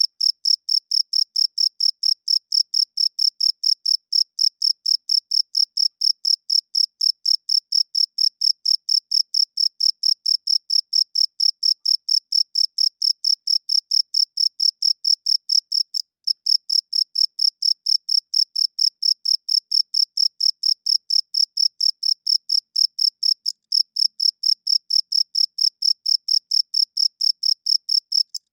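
A cricket chirping in a steady, high-pitched, even rhythm of about four chirps a second, with a brief break about halfway through and another near the end.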